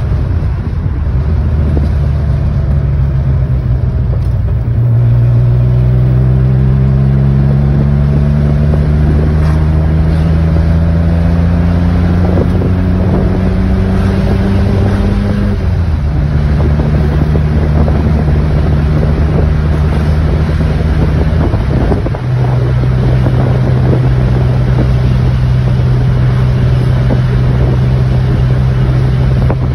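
Porsche engine heard from inside the moving car, pulling through a gear with its pitch rising for about ten seconds, then dropping sharply at an upshift about fifteen seconds in. It then cruises at a steady pitch, with a brief dip a little after twenty seconds, over a steady rush of wind.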